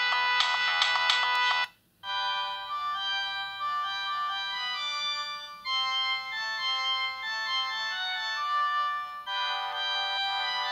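Siemens M55 mobile phone playing its ringtones. A bright, busy tune cuts off about two seconds in, and after a short gap a slower melody of several notes at once begins, changing phrase twice.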